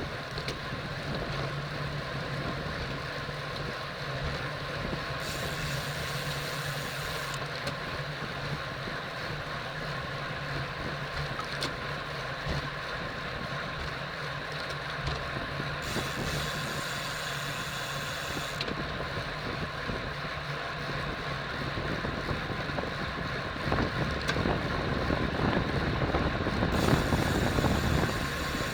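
Wind rushing over a bicycle-mounted camera's microphone as the bike rides at speed, with tyre and road noise underneath; the rumble grows louder and rougher for the last few seconds.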